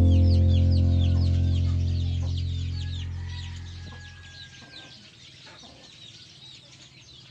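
Chicks peeping continuously in quick, high, falling chirps, several a second. Under them the last low chord of background music dies away over the first four seconds.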